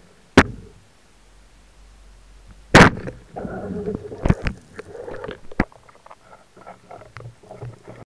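Underwater knocks and clicks carried through a speargun-mounted camera housing: a sharp click, a loud knock near the 3-second mark, then a run of smaller clicks and knocks over a rough water noise.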